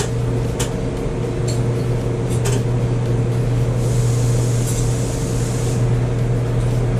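Steady low machine hum in a machine shop, with a few light metallic clicks about a second apart in the first few seconds as small fan-mounting nuts are worked loose by hand. A brief hiss comes about four seconds in.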